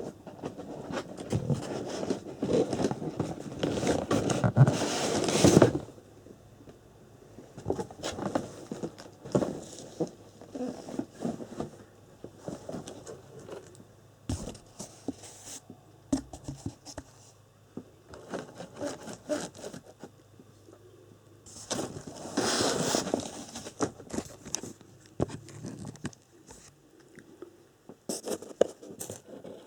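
Packaging being handled during an unboxing: rustling and scraping for the first few seconds, then scattered small clicks and knocks, with another short burst of rustling about three-quarters of the way through.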